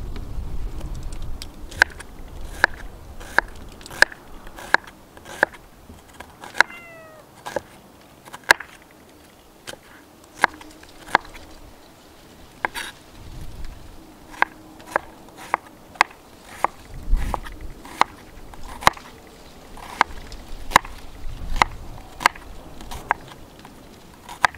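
A series of sharp knocks, a little more than one a second with short pauses, like blows on a hard surface. About a third of the way in, a brief call of four quick falling notes, each lower than the one before.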